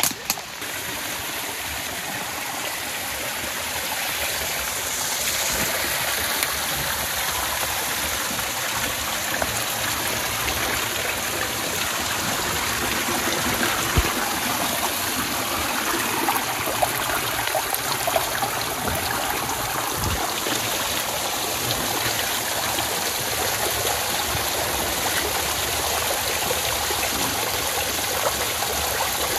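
Water streaming and dripping down through tree roots into a flooded earthen hollow, splashing on rubber waders and into muddy water below: a steady rush that builds over the first few seconds, with a couple of brief knocks partway through.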